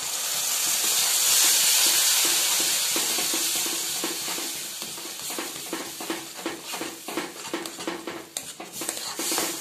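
Cashew, ginger, pepper and yogurt paste poured into hot oil in a wok, sizzling loudly at first, the hiss dying down over a few seconds. A spatula then stirs it, scraping the pan in quick irregular strokes.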